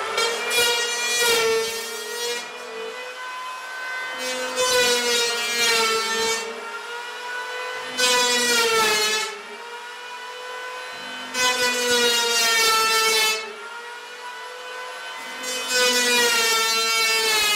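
Electric planer motor running with a steady whine, making five passes of rasping cutting noise as it shaves old paint off wooden floorboards, the pitch dipping slightly under each cut. The motor starts to wind down at the very end.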